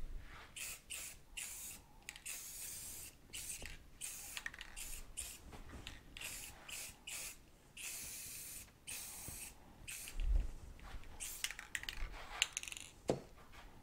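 Aerosol spray paint can hissing in a series of short bursts and a few longer passes. A low thump about ten seconds in.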